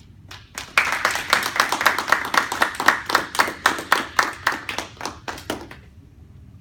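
A small audience clapping, the separate claps distinct and coming about four to five a second. It starts about half a second in and stops just before the end.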